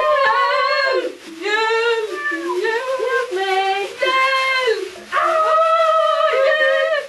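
A child's high voice in long, drawn-out phrases that rise and fall, about half a dozen of them, ending in a note held for about two seconds.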